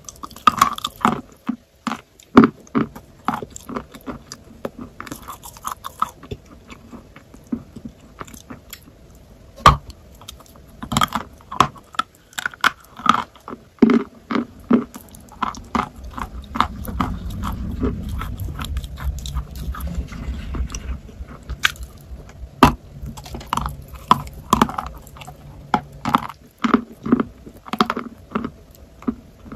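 Close-miked biting, crunching and chewing of dry chalk: irregular sharp crunches, with a stretch of low, muffled chewing in the middle.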